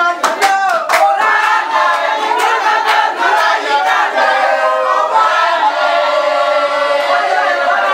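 A crowd singing together in chorus, with sharp hand claps through the first two or three seconds.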